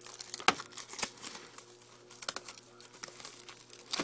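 Plastic wrapping being torn open and peeled off a DVD box set, crinkling with irregular sharp crackles.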